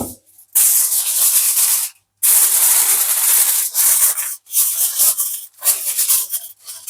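Aluminium foil crinkling as it is spread and pressed over a baking dish, in several rustling bursts each about a second long with short pauses between.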